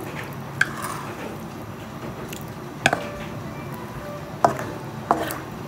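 A spatula knocking against a wok a few times, sharp and short, as it nudges fish pieces around in simmering broth.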